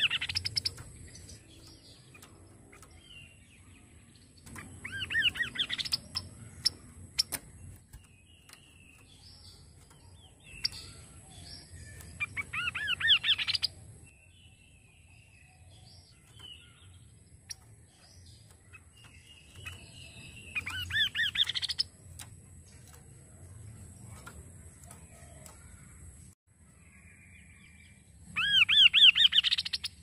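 A caged chestnut-capped babbler (kaso-kaso) singing short, loud trills of quickly repeated, rising notes, about one phrase every seven or eight seconds, with faint ticks in between.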